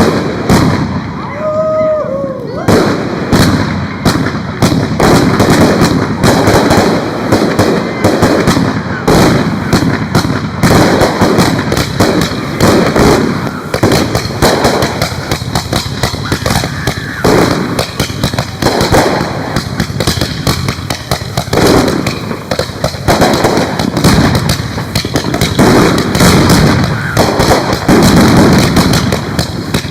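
Fireworks going off in rapid succession: a dense, continuous barrage of bangs and pops.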